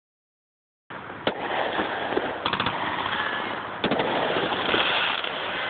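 Aerial fireworks exploding after about a second of silence. A sharp bang comes just over a second in, a quick string of cracks follows around two and a half seconds, and another cluster of bangs comes near four seconds, all over a constant noisy din.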